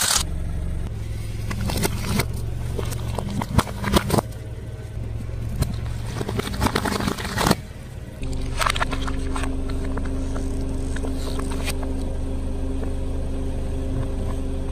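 A car's engine running low and steady while its tyre rolls onto a plastic light-up star wand: sharp cracks and crunches of breaking plastic come in clusters through the first half, loudest around four and seven seconds in. After about eight seconds only a steady hum remains.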